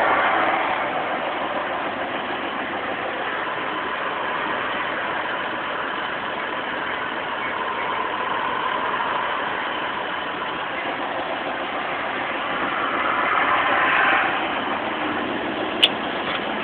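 Farm tractor engine running steadily, swelling slightly near the end, with one sharp click just before it ends.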